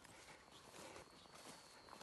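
Faint footsteps, irregular soft steps on the ground, over a faint steady high-pitched tone.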